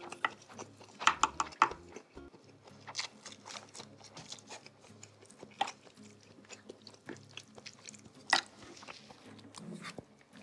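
A person eating seblak close to the microphone: wet chewing and biting with scattered clicks and smacks. There is a cluster of louder ones about a second in and one sharp one near eight seconds.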